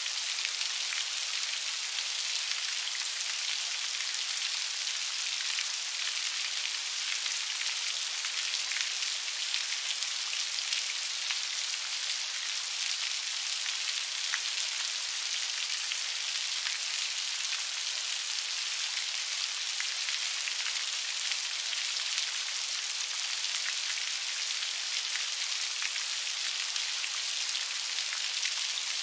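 Steady rain falling, heard as an even hiss with fine pattering of individual drops.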